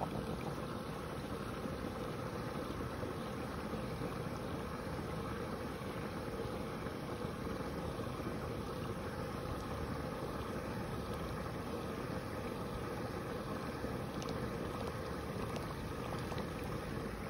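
Steady wind noise on the microphone, with a faint steady hum underneath.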